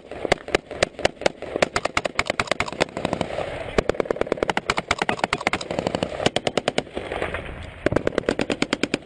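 Automatic gunfire in repeated bursts, rapid shots about ten a second, with short pauses between bursts.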